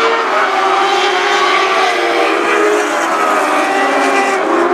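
A pack of Lightning Sprint cars running at high revs, several engines blending into one steady, many-toned drone whose pitches drift slowly up and down.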